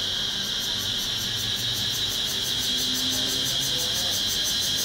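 Cicadas calling from a tree: a loud, steady high shrill with a fast, even pulsing over it.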